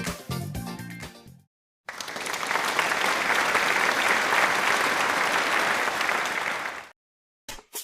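Background music fading out, then about five seconds of applause that cuts off abruptly.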